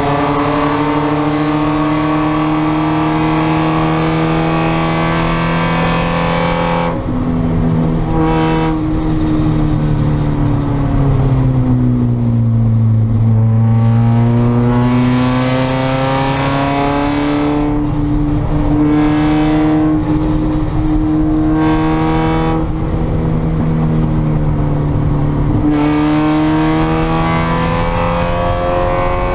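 Spec Miata's four-cylinder engine running hard under racing load. Its pitch falls steadily to a low about halfway through as the car slows, then climbs again, with several brief breaks in the sound as the driver lifts or shifts.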